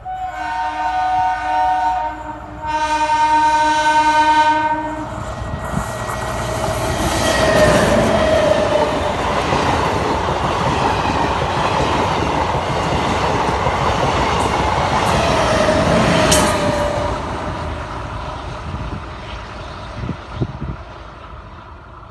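ICF diesel-electric multiple unit (DEMU) passenger train sounding a several-note horn in two blasts, the second a little longer. It then passes close by with a loud rushing rumble of wheels on rails that builds, holds, and fades as it moves away.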